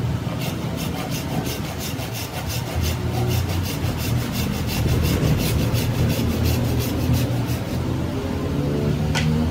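A hand blade shaving a wooden handle in quick, even strokes, about three or four scrapes a second, over a steady low drone. The strokes stop near the end.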